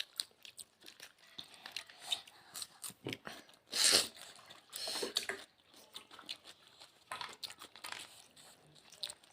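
Close-up eating sounds: chewing and small mouth clicks and crackles of rice, curry and salad being eaten, with a loud short hiss about four seconds in and a weaker one about a second later.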